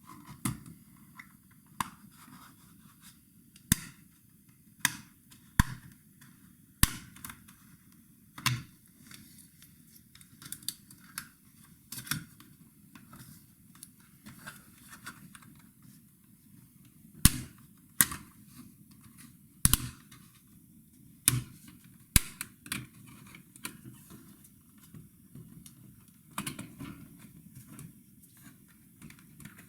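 Irregular clicks, snaps and scrapes of laptop plastic parts and small tools being handled during disassembly, about one every second or two, with a few sharp, loud snaps.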